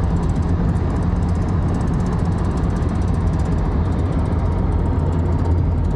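Lexus SC400 drift car running at highway speed: a steady engine drone under road and wind noise, with a fast, even flutter on top from the front splitter vibrating at about 75 mph.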